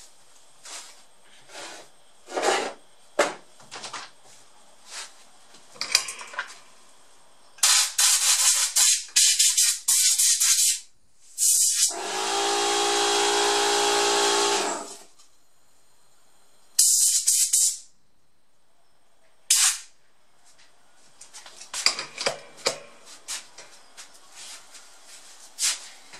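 Compressed air blown through a Samsung R580 laptop's heatsink to clear out dust: a run of short rushing blasts, then one held for about three seconds with a steady pitched tone in it, then two more short blasts. Small clicks and knocks of handling come before and after.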